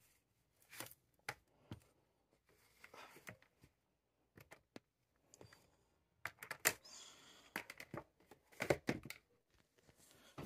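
Small makeup items and containers being handled and set down: scattered light clicks and knocks with some rustling, busiest in the second half.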